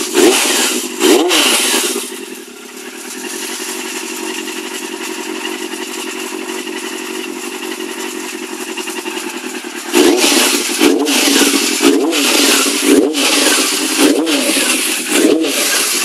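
Yamaha FZR400 inline-four motorcycle engine running on its first start after a top end rebuild. It is revved briefly, settles to a steady idle for several seconds, then is blipped on the throttle over and over in quick short revs.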